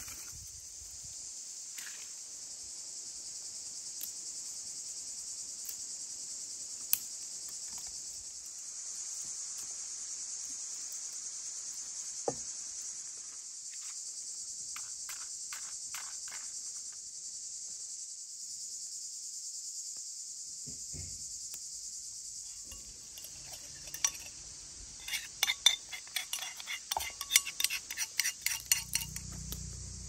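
A steady high buzzing insect chorus runs throughout. A few scattered clicks, then a quick run of sharp snaps and clicks over the last few seconds, from dry twigs and sticks being handled.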